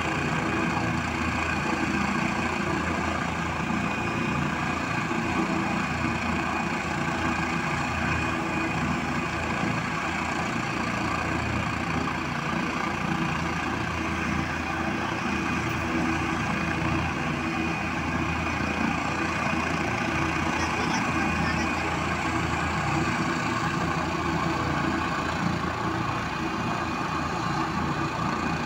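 Helicopter running on the ground with its rotor turning: a steady engine drone with a thin, high, constant turbine whine.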